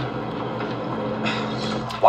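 A steady low mechanical hum under an even hiss, like an engine or machinery droning.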